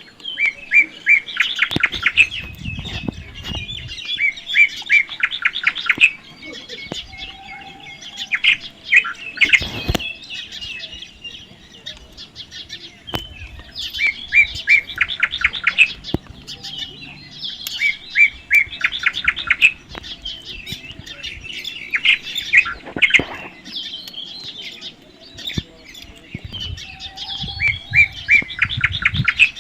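Baby parrots chirping in quick runs of short, high calls, bout after bout every few seconds. There are a few low thumps near the start and again near the end.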